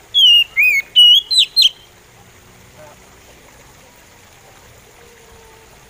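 Oriental magpie robin singing a short phrase of about five clear whistled notes in quick succession: two falling whistles, then rapid upward-sweeping notes, all within the first two seconds.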